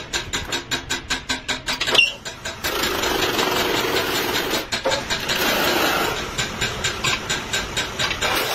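Belt-driven metal-spinning lathe turning a copper disc while a hand-held spinning tool is pressed against it to form a pot: a rapid, even knocking about seven times a second, easing into a steadier, noisier stretch about a third of the way in, with the knocking coming back near the end.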